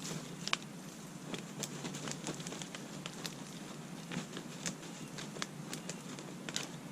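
Grass clippings rustling and crackling as they are emptied out of a lawn mower's rear grass bag, with many small irregular crackles.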